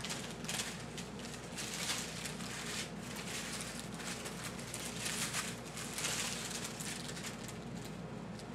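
Small plastic bags of diamond painting drills crinkling and rustling as they are handled and laid down, in short bursts about every second.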